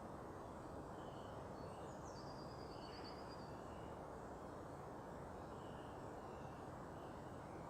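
Steady low hum of distant city traffic, with faint, thin, high bird calls over it: scattered short chirps, and one about two seconds in that drops in pitch and then holds for about a second and a half.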